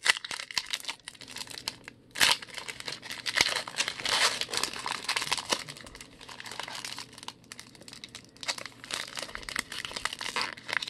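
Foil wrapper of a 2020 Donruss baseball card pack crinkling and crackling as it is handled and torn open, in irregular bursts.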